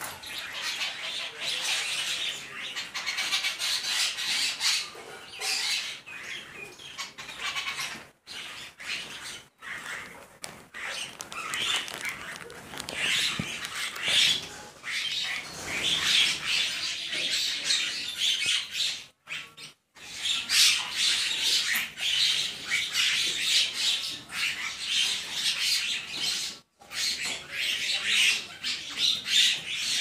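A large flock of mynas calling all at once, a dense chatter of squawks and chirps, with wingbeats as birds fly in to feed. The chorus breaks off abruptly for a moment a few times.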